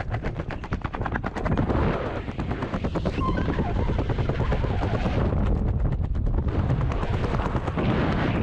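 Loud wind rushing over a skydiver's helmet-camera microphone, with a rapid flapping of many sharp cracks a second, while he spins under a tangled, malfunctioning parachute. The flapping comes and goes, densest near the start and again about five seconds in.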